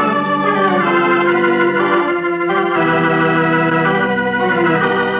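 Organ music playing held chords that shift a few times: a radio-drama musical bridge leading from the commercial back into the story.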